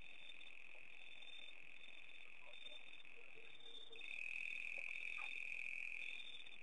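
Steady high-pitched trilling of a night chorus of calling frogs or insects, growing louder for about two seconds from around four seconds in.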